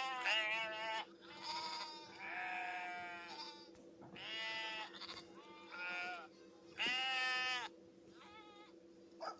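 Sheep bleating over and over, a string of about eight wavering, fairly high-pitched bleats of half a second to a second each, with a steady low hum underneath.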